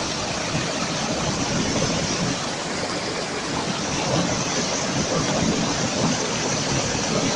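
A steady rushing noise, even and unbroken throughout.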